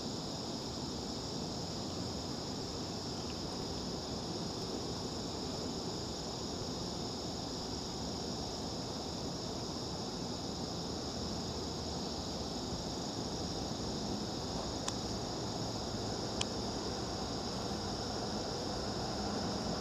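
Steady, high-pitched insect chorus over a low, even background rumble, with two brief ticks about a second and a half apart near the end.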